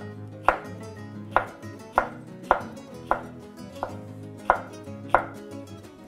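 Kitchen knife slicing a red sweet pepper into thin strips on a wooden cutting board: about eight sharp knocks of the blade on the board, a little more than one a second, stopping about five seconds in.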